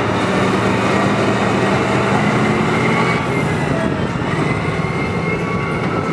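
Earthmoving scraper's heavy diesel engine running hard, with a thin high whine that wavers in pitch above the engine noise.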